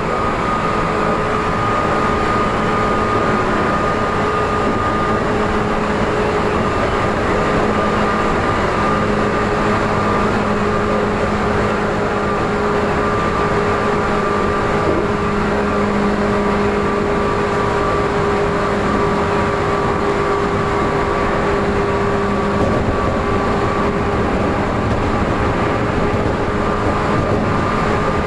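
Tokyu 8500 series electric train running at a steady speed, heard inside the front car. The traction motors and gears give a loud whine held at a constant pitch over the rumble of the wheels on the rails.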